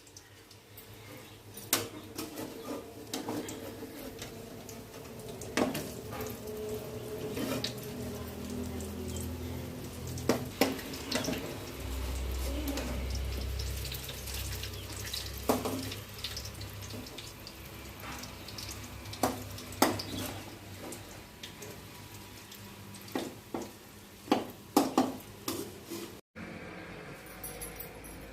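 Water running from a tap into a sink, with dishes and utensils knocking and clinking every few seconds. The sound cuts off abruptly near the end.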